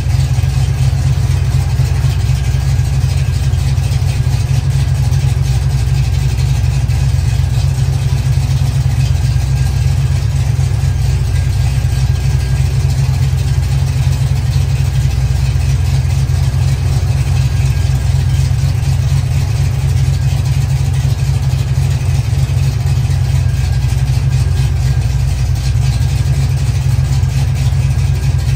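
Carbureted engine of a Chevy Nova, fitted with a new Quick Fuel Brawler carburetor, idling steadily while it warms up after its first start in a long time. The ignition timing is not yet set.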